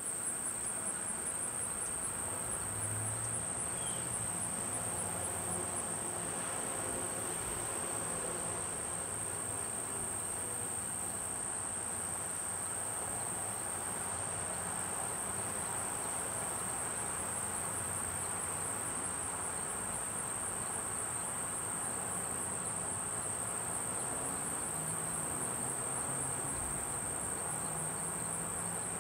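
Insects trilling: one steady, high-pitched, unbroken note.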